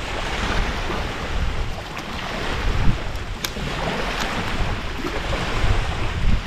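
Wind buffeting the microphone over a steady rushing noise, with a sharp click about three and a half seconds in.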